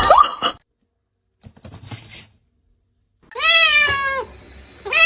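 Cat meowing: one long meow of about a second, followed near the end by the start of a second meow. A faint short rustle comes before the first one.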